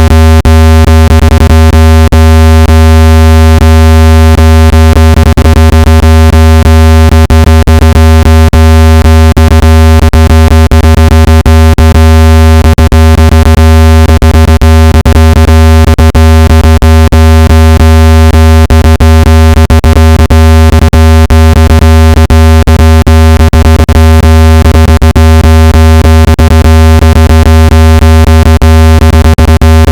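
Steady, very loud, low-pitched synthesized tone with a buzzy stack of overtones, held unchanged throughout: a speaker-cleaning tone played to vibrate water out of a phone speaker.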